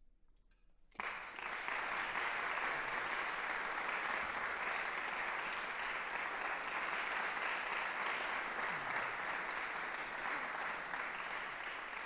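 Audience applauding, starting suddenly about a second in after a brief hush and holding steady and dense.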